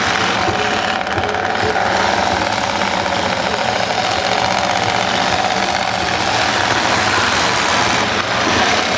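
Several demolition derby cars' V8 engines running loudly together in a steady, dense din.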